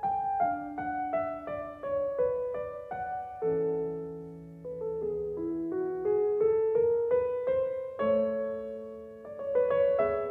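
Background solo piano music: a melody of struck notes moving step by step, with lower notes held beneath it.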